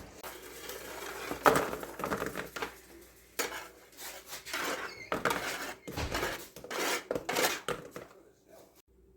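Kitchenware clattering: pans and metal utensils handled in a string of irregular knocks and scrapes, the sharpest knock about a second and a half in.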